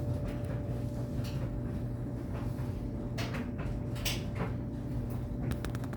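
A steady low hum, with a few faint clicks or rustles near the middle and a quick run of small ticks near the end.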